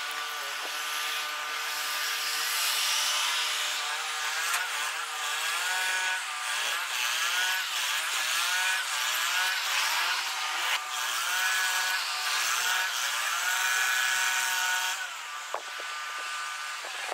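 Engine noise sped up four times: a whine of several stacked tones that keeps gliding up and down over a steady hiss, easing off about fifteen seconds in.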